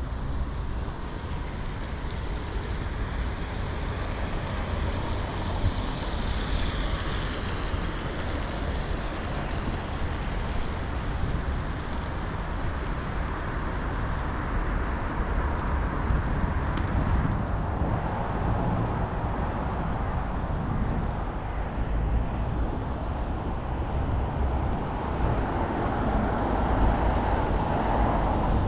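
Steady street traffic noise with passing cars, growing a little louder near the end.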